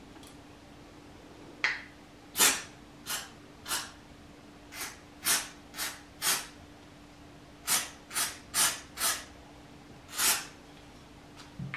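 Aerosol can of silicone oil sprayed in short bursts into cups of acrylic pouring paint: about thirteen brief hisses in small groups.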